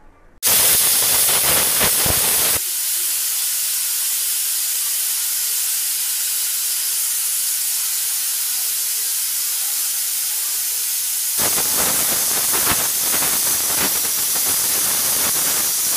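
Aluminium stovetop pressure cooker whistling: steam forcing out under the weight valve as a loud hiss that starts suddenly about half a second in. The hiss splutters unevenly for the first two seconds and again over the last four or five, and is steadier between. The whistle is the sign that the cooker is at full pressure, counted toward the two or three whistles the curry needs.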